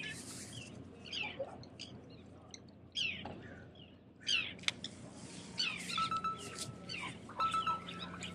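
Birds chirping: repeated short, quick calls that sweep downward in pitch, scattered through the whole stretch. About six seconds in, a steady held tone joins them.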